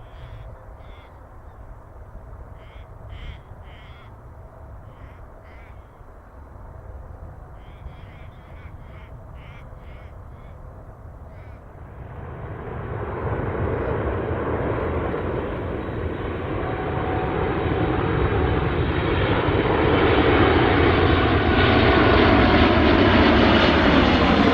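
Birds cawing in short calls over a low rumble, then the jet engines of an approaching Boeing 747 growing steadily louder from about halfway through until they fill the sound.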